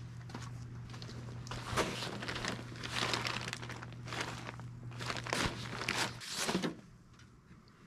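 Crinkling and rustling handling noise, irregular strokes, over a low steady hum that cuts off about six seconds in.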